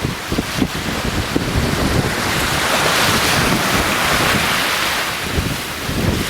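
Caspian Sea surf washing onto the beach, one wave swelling and breaking about halfway through, with wind buffeting the microphone.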